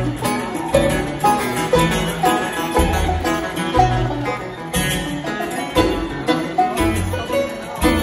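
Live bluegrass band playing an instrumental jam: acoustic guitars, banjo and upright bass, with quick plucked runs over a steady bass pulse.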